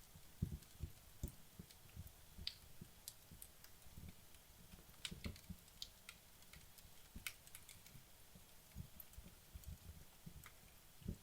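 Wood logs burning in a fireplace, crackling faintly with sparse, irregular sharp snaps and soft low pops.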